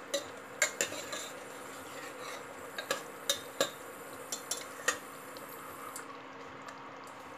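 Steel ladle stirring watery egg-and-potato curry in a pressure cooker pot, clinking and scraping against the pot's metal sides in a string of irregular knocks that stop about five seconds in. A steady low hum runs underneath.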